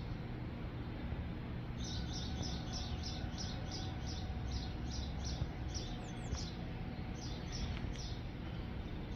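A songbird giving a long run of short, high chirps, about three a second, starting about two seconds in and stopping near the end, over a steady low background rumble.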